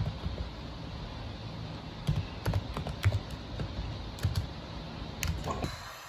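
Typing on a computer keyboard: irregular key clicks, some in quick runs with short pauses between.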